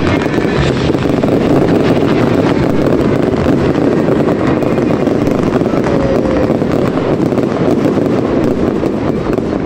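Fireworks going off in a continuous barrage: dense, unbroken crackling and fizzing from crackling comets and stars, with many rapid pops.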